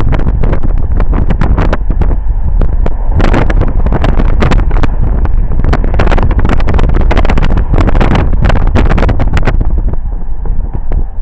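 Heavy wind buffeting a camera microphone held out of a moving car's window: a loud, constant low rumble with crackling gusts. It eases slightly near the end.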